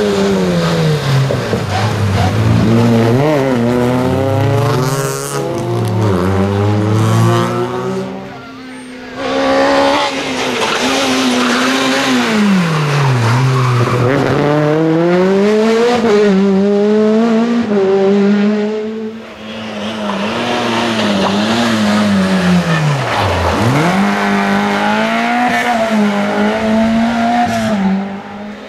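Rally cars at race pace on an asphalt stage, engines revving hard, the pitch climbing and dropping again and again through gear changes and braking. There are three separate stretches, broken by short drops in sound about a third and two thirds of the way through.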